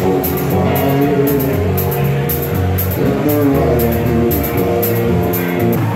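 Live band playing guitar and drum kit, with held notes over a bass line and regular cymbal strikes.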